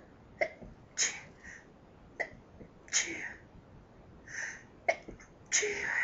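A woman sneezing three times in a fit, about two seconds apart: each sneeze is held back into a stifled or half-stifled burst, a sharp catch followed by a short hissing blast. The third sneeze, near the end, is the longest and loudest.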